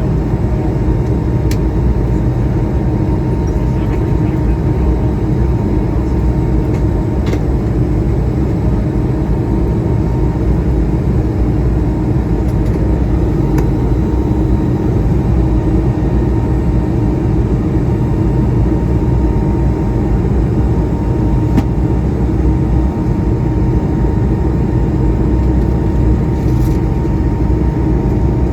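Steady cabin noise aboard an Airbus A220-300: an even low rumble of engines and airflow with a faint steady whine, and a few faint clicks.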